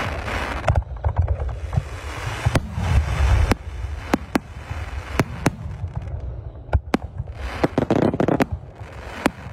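Fireworks display: aerial shells bursting in quick succession, a dozen or more sharp bangs over a deep rolling boom, with stretches of crackling hiss between them.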